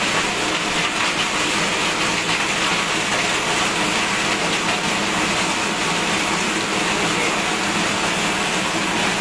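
Plastic waste crusher running steadily, its blades shredding plastic fed into the hopper: a loud, even mechanical noise.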